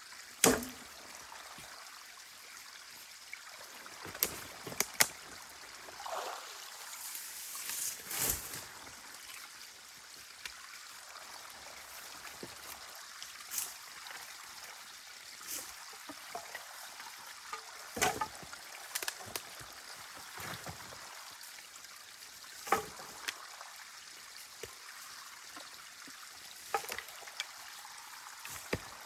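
Water trickling and running steadily in a drainage channel, with scattered sharp knocks and snaps over it.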